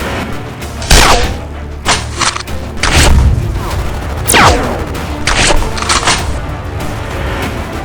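Action-style background music with a heavy bass bed, cut through by booming, gunshot-like sound effects: around eight sharp hits, a couple of them followed by a falling whoosh.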